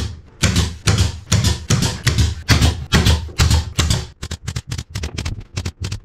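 Pneumatic pin nailer firing pins into plywood panelling: about ten sharp shots, roughly two a second, followed near the end by a quicker run of lighter clicks.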